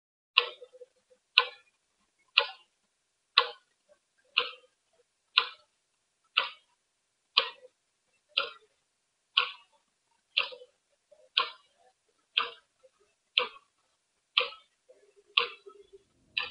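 A clock ticking steadily, one sharp tick each second, with silence between the ticks.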